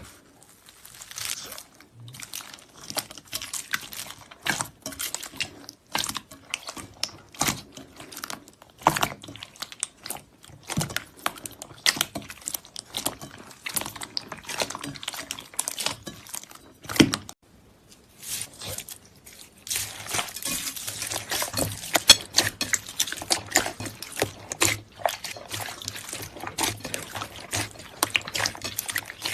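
Slime being squeezed and stretched by hand: a long run of wet, sticky clicks and pops, turning to a denser crackle about twenty seconds in.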